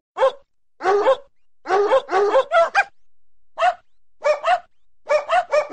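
Dog barking in short, sharp barks, some single and some in quick runs of three or four.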